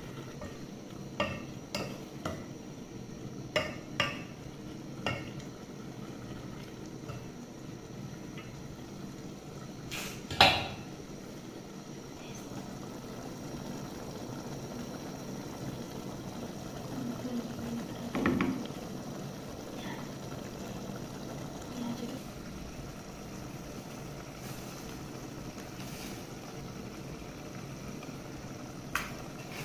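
Wooden spoon knocking against an aluminium cooking pot while a thick tomato stew is stirred: a handful of sharp knocks in the first five seconds and one louder knock about ten seconds in, over a steady low background noise.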